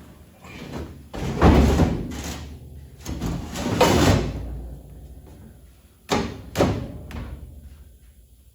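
Heavy metal round-baler parts clanking and scraping as a section is worked back into place: two long scraping, grinding stretches in the first half, then two sharp metal knocks.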